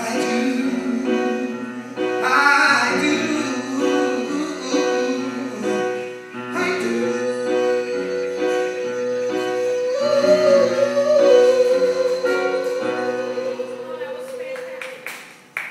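A male singer performing a show tune live over instrumental accompaniment, finishing on one long held high note with vibrato that fades away near the end.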